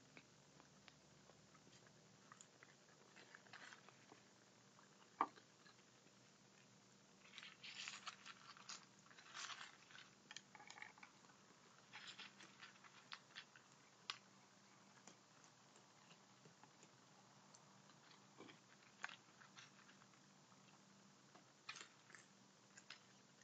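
Raccoons crunching dry kibble: faint, scattered crunches and clicks of chewing, with a busier run of crunching about eight to eleven seconds in.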